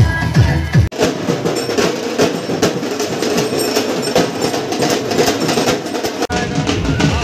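Music with fast, dense drumming, cut off abruptly about a second in and again near the end as the sound switches between clips.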